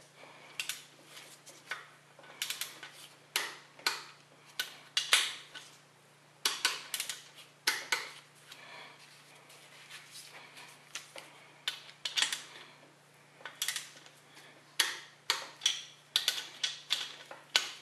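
Torque wrench ratcheting on the outer main bearing cap bolts of a 350 Chevy small-block as they are brought to 65 ft-lb: irregular sharp metallic clicks and clinks, some in quick runs of three or four.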